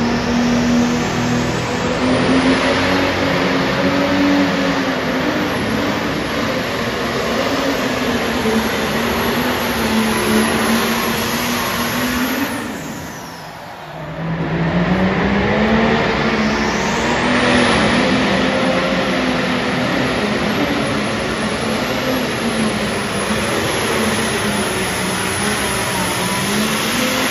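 Pulling-tractor engine running near full throttle under load as it drags a weight-transfer sled, its pitch wavering, with a high whistle above it that rises as the run begins. About halfway through the sound falls away briefly, then a second run with the same kind of engine note and rising whistle picks up.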